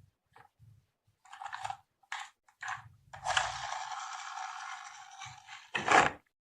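Marbles on a marble run track: a few short clacks, then a steady rolling rattle for about two and a half seconds, ending in a louder clatter near the end.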